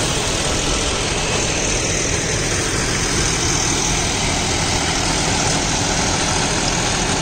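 John Deere 5405 CRDI tractor with its 2.9-litre turbo-intercooled diesel engine, running steadily.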